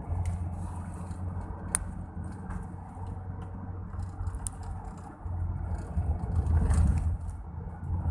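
Car driving on a winding road, heard inside the cabin: a steady low engine and road rumble that grows louder about five seconds in, with a couple of sharp clicks.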